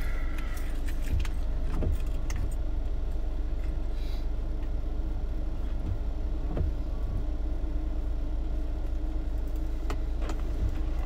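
Steady low hum of a car heard from inside the cabin, with a few light clicks and rattles scattered through it.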